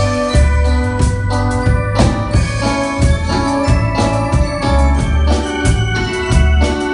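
Live band playing an instrumental passage: held electric organ or keyboard chords over a bass guitar line and a drum kit keeping a steady beat.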